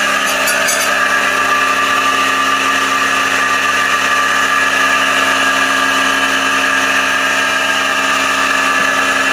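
A motor running at a steady speed, giving an even, unchanging whine with no hammer blows.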